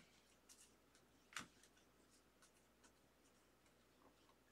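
A few faint clicks and slides of trading cards being moved through a stack one at a time, with one slightly louder snap about a second and a half in; otherwise near silence.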